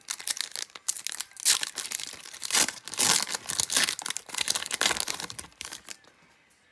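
A foil hockey card pack wrapper being torn open and crinkled by hand: a run of crackles and sharp rips that dies away near the end.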